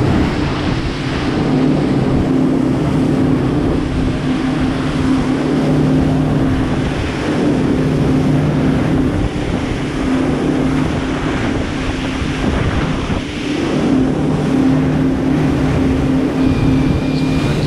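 Boat engine running steadily with a low hum, under wind rushing on the microphone and water noise.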